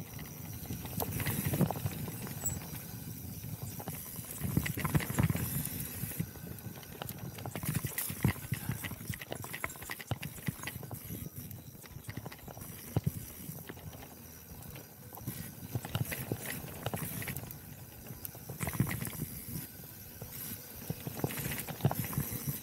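Specialized Turbo Levo e-mountain bike rolling fast down a dirt singletrack. Its tyres rumble over the ground, and the frame, chain and suspension rattle with many quick knocks over bumps and roots.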